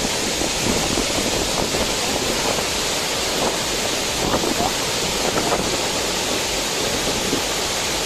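Waterfall pouring into a rock pool: a steady, unbroken rush of falling water.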